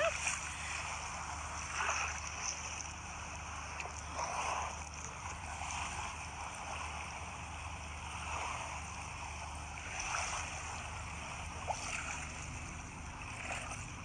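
Shallow seawater washing over rocks and seaweed at the shore: a continuous rush of water that swells and eases.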